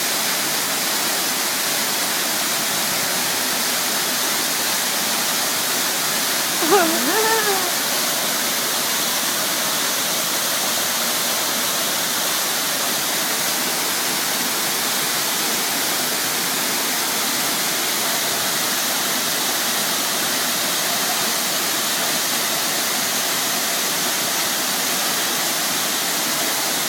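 Waterfall pouring steadily, an unbroken wash of falling water. A brief voice cuts in about seven seconds in.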